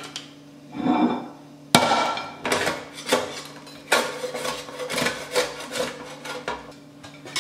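A spatula scraping and knocking sweet potato fries off a metal baking sheet onto a plate: repeated scrapes, knocks and clatter, with one sharp knock a little under two seconds in.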